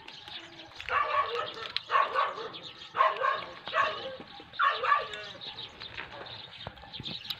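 Five short, barking animal calls, about one a second, then they stop about five seconds in.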